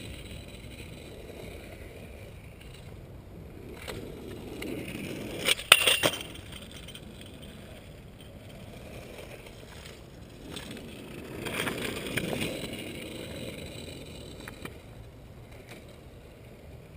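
Stunt scooter wheels rolling on pavement, with a scraping grind building about four to six seconds in and ending in two sharp clacks of a landing, then a second scraping swell about twelve seconds in.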